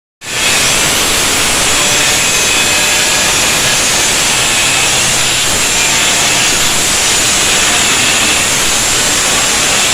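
A power tool grinding steel: a loud, steady, hissing grind that starts a moment in and keeps on without a pause.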